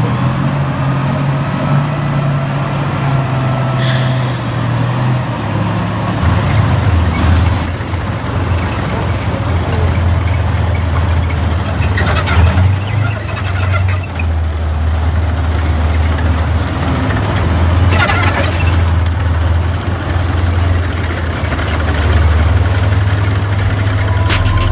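Heavy diesel engine of a T-55-based BLG-60 tank bridge-layer running as the tracked vehicle moves: a deep steady drone that drops lower a few seconds in. A few short, loud hisses break through it.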